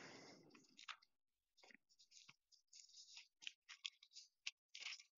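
Near silence: a soft exhaled breath fading out in the first second, then faint, scattered small clicks and light rustles.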